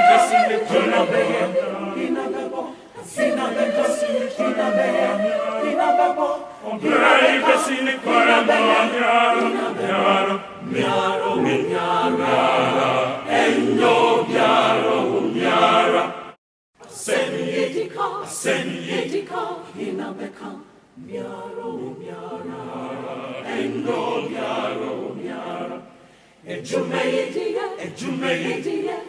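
A group of voices singing together without instruments: a congregation singing a hymn a cappella. The sound cuts out completely for a moment about sixteen seconds in.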